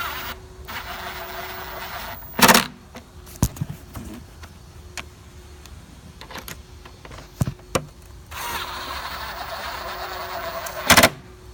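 Tool tightening bolts: two spells of fast whirring, about a second and a half and two and a half seconds long, with sharp knocks about two and a half seconds in and near the end.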